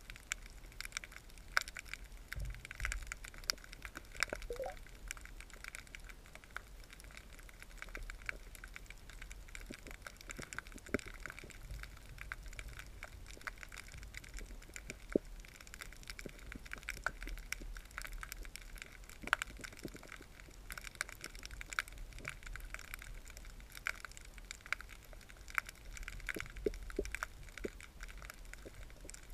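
Underwater ambience heard through a submerged camera: scattered sharp clicks and crackles over a low rumble.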